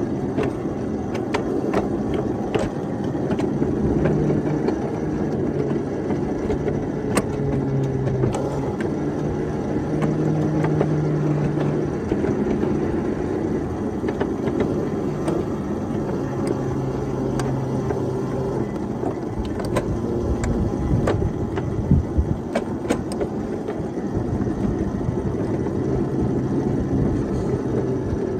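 7½-inch gauge ride-on locomotive pulling a loaded flatcar along the track, running steadily with a low tone that rises and falls. Its wheels click sharply now and then over the rail joints.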